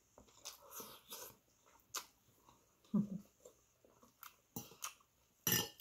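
Eating sounds: chewing, with a fork clicking against a ceramic plate. There is a short hummed sound about three seconds in and a brief, loud, noisy sound just before the end.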